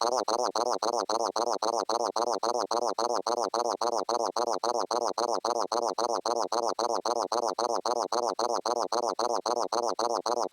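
A synthesized electronic sound effect: a fast, even warbling pulse of about five beats a second, each beat sweeping up and down in pitch, running without a break.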